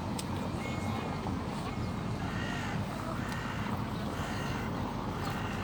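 A crow cawing, a run of about four harsh caws roughly a second apart starting about two seconds in, over a steady low background rumble.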